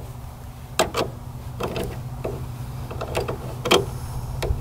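A hand wrench clinking and clicking against the battery terminal bolt in a series of irregular, sharp metallic taps as the battery cable is being loosened. The work is the first step of pulling the starter. A steady low hum runs underneath.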